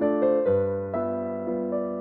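Background music: piano chords played at a gentle, even pace, a new chord about every half second.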